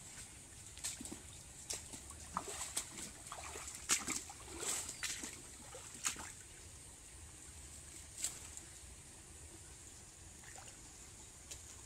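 Footsteps wading through shallow muddy water among leafy plants: irregular sloshing, splashing and rustling, busiest over the first six seconds, then only a few scattered steps.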